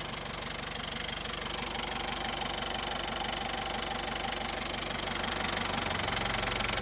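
Toyota 3C 2.2-litre four-cylinder diesel engine idling steadily with an even pulse, getting louder over the last couple of seconds.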